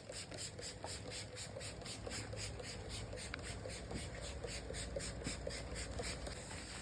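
Cloth rubbing orange oil over a wooden tabletop in quick back-and-forth strokes, about three or four a second, ending shortly before the end.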